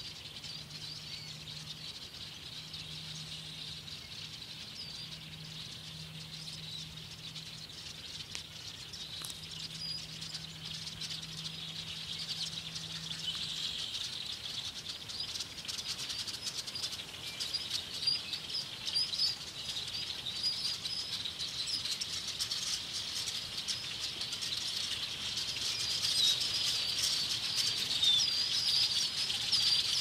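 A huge flock of birds passing overhead: a dense mass of chirping, chattering calls with the rush of many wingbeats, growing louder as the flock thickens in the second half.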